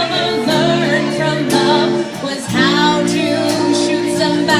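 A live song: a guitar strummed in held chords under a singing voice, with a slight vibrato on the longer notes.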